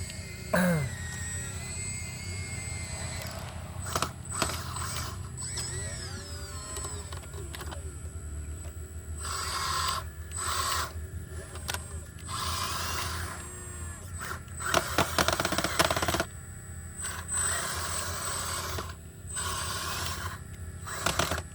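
Sumitomo SH120A3 excavator working, its engine running with a steady low hum under repeated bursts of hiss and clatter from the machine as it digs. A sharp falling squeal sounds about half a second in.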